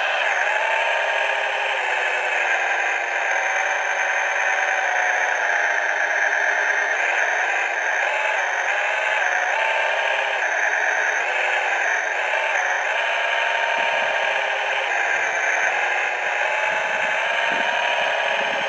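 CrossRC HC6 6x6 RC scale truck running slowly over gravel: a steady high whine from its drive that shifts up and down in pitch several times with the throttle, with gravel crunching under the tyres near the end.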